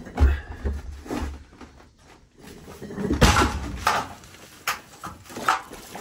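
Knocks and thumps of plastic containers being handled: a plastic builder's bucket lifted and set about at the start, and a plastic water can bumped about a few seconds in, with smaller knocks near the end.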